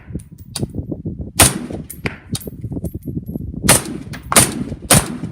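Sig MCX 5.56 rifle shots: one about a second and a half in, then three in quick succession near the end, with fainter sharp clicks between.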